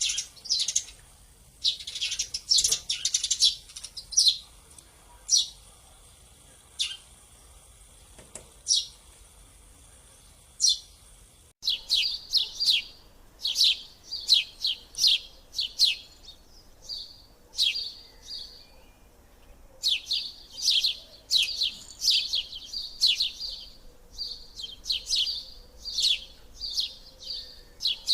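Sparrows chirping: short, high, repeated chirps, fairly sparse at first, then after an abrupt cut near the middle a busier run of rapid chirps.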